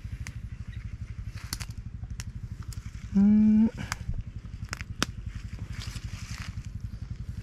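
Small motorcycle engine running at low revs, a steady low throb of about ten beats a second. About three seconds in, a short half-second tone stands out over it, and a few sharp clicks fall here and there.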